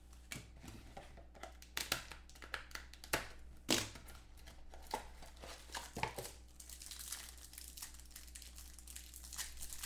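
Trading card packs and packaging being handled: irregular crinkling and tearing of wrappers with short rustles and taps of cards.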